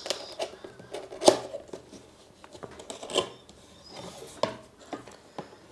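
A cardboard camera box being opened by hand: irregular taps and clicks of the lid and inner flaps, the loudest a little over a second in and again about three seconds in.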